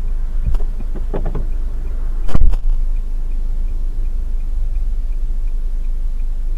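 A stopped car's engine idling, heard from inside the cabin, with a faint steady ticking of about two or three ticks a second from the hazard-light flasher. A few light knocks, then one loud thump about two and a half seconds in as a car door is shut.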